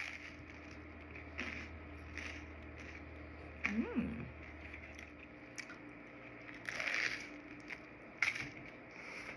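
Close-miked eating sounds: a scattering of crunches and soft wet chewing noises from biting into toasted pizza toast, with one short pitched vocal sound about four seconds in. A low hum underneath stops about halfway through.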